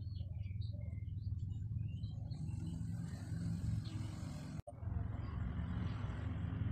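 Background ambience: a steady low rumble with a few short chirps in the first second, then a hiss that comes in and stays. Everything cuts out for an instant about halfway through, then the rumble and hiss resume.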